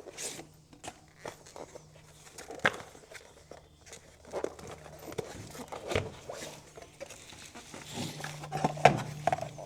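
Unboxing sounds: scattered light taps, scrapes and rustles of a small cardboard box and its packing as the turn signal pods are slid out, over a faint steady hum.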